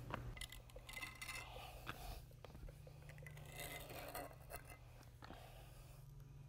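Faint scraping and rubbing of a hand tool worked through a wet metallic epoxy floor coating, in two short spells about a second in and around four seconds, over a steady low hum.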